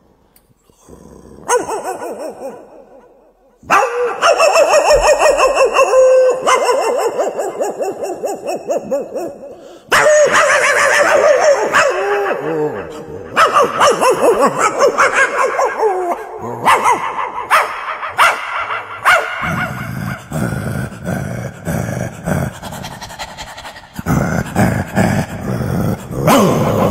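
Dog-like barking, yelping, whimpering and growling in quick overlapping runs, starting after a second or so of quiet and going on with short pauses.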